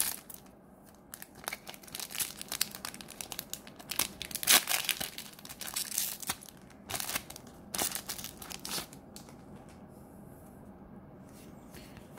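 A foil-lined trading-card booster pack being torn open, its wrapper crinkling in a dense run of sharp crackles that is loudest about four and a half seconds in and dies down after about nine seconds.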